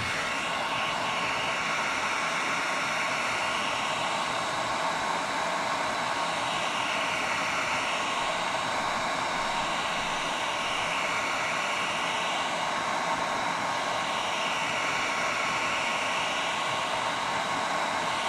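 Handheld heat gun blowing a steady hiss of hot air onto a RAM stick's metal heat spreader, warming the double-sided thermal tape underneath until it lets go.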